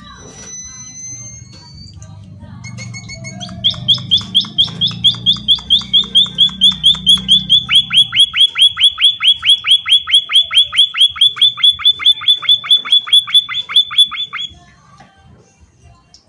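A munia (emprit) singing a long, loud, even trill of repeated downward-sweeping notes, about four a second, lasting roughly ten seconds, preceded by a short rising whistle. A low hum lies under the first half.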